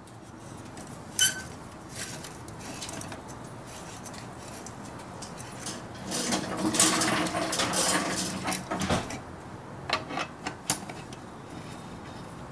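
A long T-handle socket wrench loosening the exhaust bolts on a Kawasaki KLX140 dirt bike: sharp metallic clicks of the tool on the bolt, with a louder stretch of turning and scraping from about six to nine seconds in.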